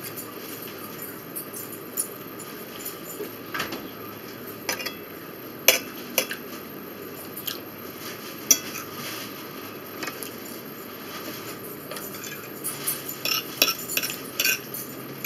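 A fork clinking and scraping against a dinner plate while someone eats, with scattered sharp clinks and a quick run of them near the end.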